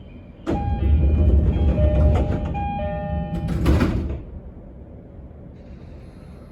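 Passenger doors of an E231 series commuter train sliding, with the two-note door chime repeating over a heavy rumble, ending in a sharp thump as the doors finish their travel.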